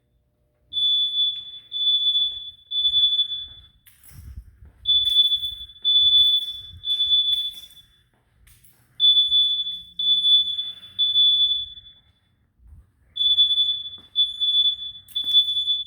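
Smoke alarm sounding high-pitched beeps in repeating groups of three with a short pause between groups (the temporal-three evacuation pattern), set off by heavy smoke.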